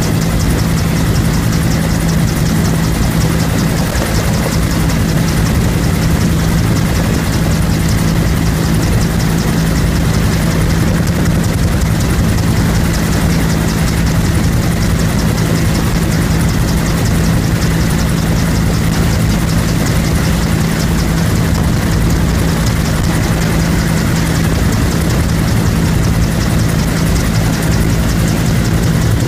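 Bell UH-1 Huey helicopter in steady cruising flight, heard from on board: its turbine engine and two-blade main rotor make a loud, steady drone with a strong low hum.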